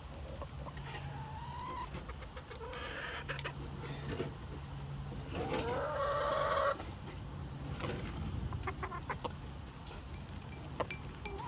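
Backyard hens clucking and calling, with one louder drawn-out call about six seconds in and a few small clicks between the calls.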